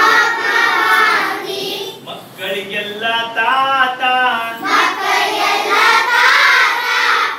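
A group of young children singing a Kannada action song together in unison, in sung lines with short breaks between them.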